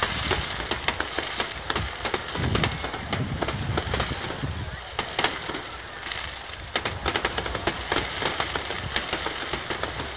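Rapid-fire fireworks (a star mine): shells bursting one after another in a dense run of bangs and crackles, with a few deeper booms, heard from a distance over crowd voices.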